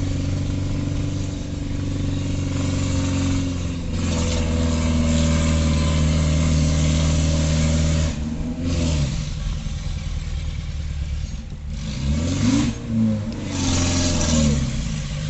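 Car engine pulling uphill at steady revs over road noise. About eight seconds in the pitch drops as it changes gear, and near the end the revs rise and fall again.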